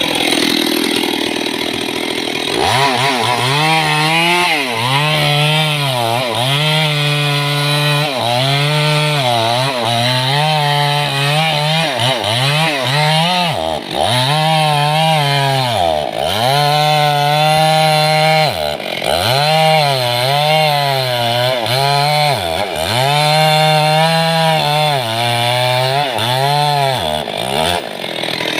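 Stihl two-stroke chainsaw working on a mahogany trunk, its engine note holding high, then dropping sharply and picking back up again and again, roughly once a second.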